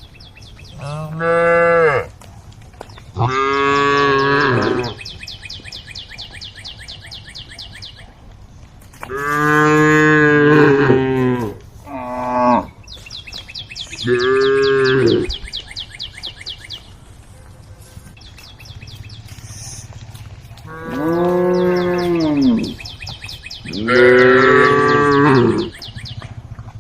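Cows mooing, about seven long, loud calls one after another, each lasting a second or two, with gaps between them.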